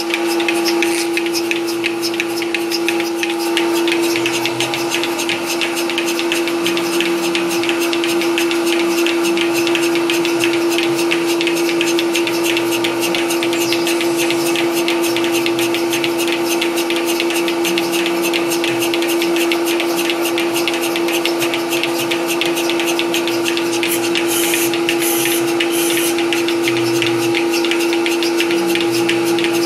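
Milking machine's vacuum pump running steadily, a constant hum with a hiss above it, keeping vacuum on the lines for attaching the teat cups.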